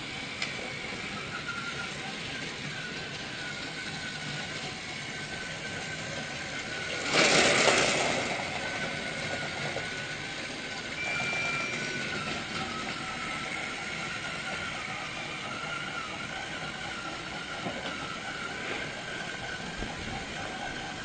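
Small motor running with a steady, slightly wavering whine. A loud rushing noise lasts about a second, about seven seconds in, and a brief high tone sounds about eleven seconds in.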